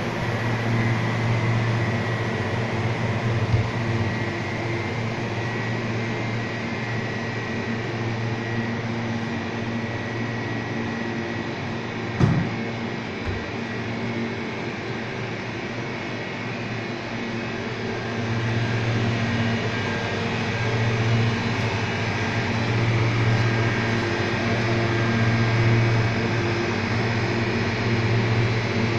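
Walk-in cold room's refrigeration unit running: a steady fan and motor hum with a faint high whine, growing somewhat louder near the end. A single knock about twelve seconds in.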